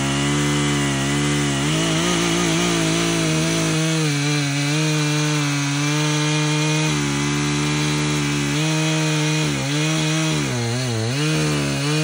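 Echo CS-590 Timber Wolf chainsaw's two-stroke engine running at full throttle while cutting through a log. Its pitch dips briefly several times as the chain loads up in the cut, most deeply near the end.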